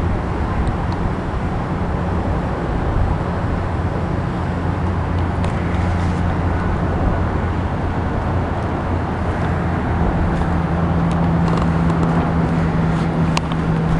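Steady low engine rumble with a droning hum, whose pitch shifts about ten seconds in.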